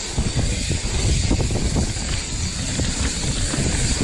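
Mountain bike riding down a rough trail: wind rushing over the microphone, with the tyres and frame rattling in many small knocks.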